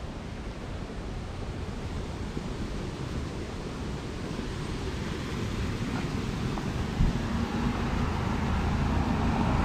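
Wind rumbling on the microphone, then from about seven seconds in a motor vehicle's engine coming closer and growing louder.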